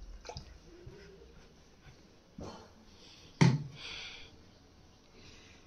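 Faint handling and rustling noise, with one sharp knock about three and a half seconds in, the loudest sound here.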